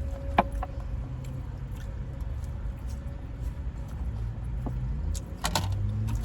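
Steady low rumble of a vehicle, with a sharp click about half a second in and a few more clicks near the end.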